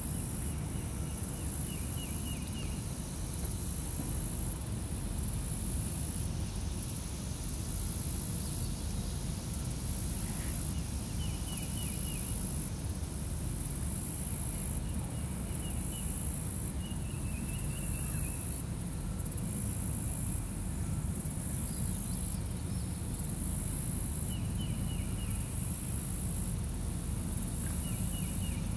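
Steady high-pitched insect chorus from the swamp, swelling and easing every couple of seconds, with a bird giving short trilled calls every few seconds, over a steady low rumble.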